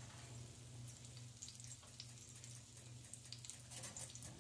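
Egg and onion mixture frying in hot bacon fat in a small cast-iron skillet: a faint sizzle with many small scattered crackles.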